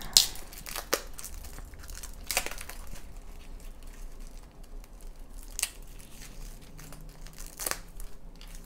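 Clear protective plastic film being peeled and pulled off a new wristwatch's case and strap, crinkling, with a few sharp crackles along the way.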